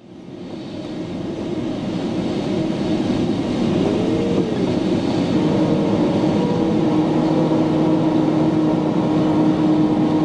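Rushing airflow noise in a glider's cockpit, swelling over the first couple of seconds and then steady and loud, with a faint humming tone running under it.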